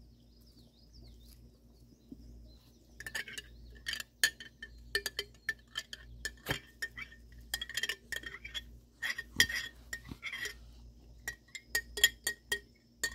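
Glass canning jar clinking in quick, irregular taps with a ringing tone as thick home-canned peach pie filling is shaken and worked out of it, starting about three seconds in.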